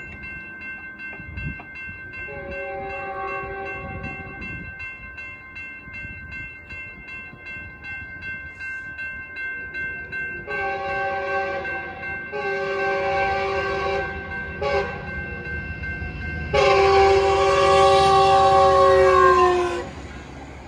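Metrolink commuter train's air horn, a multi-note chord, sounding the grade-crossing pattern: two long blasts, a short one, then a final long blast that is the loudest, after a fainter blast about two seconds in. A steady high ringing, typical of crossing warning bells, runs through the first half, and the train's rumble rises near the end as it passes.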